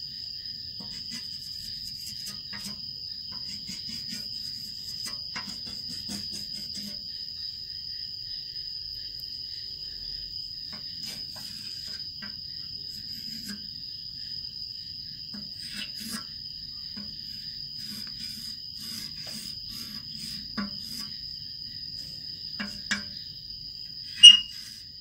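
Crickets trilling: one steady, unbroken high tone with no pauses. Over it are faint ticks and scrapes of chalk drawn across a blackboard, and a sharp click near the end.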